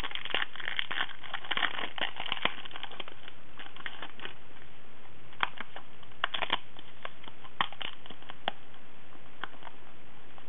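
Clear rubber-like stamps being peeled off their thin plastic carrier sheet and handled, with crinkling and crackling of the plastic for the first few seconds, then scattered light clicks and taps.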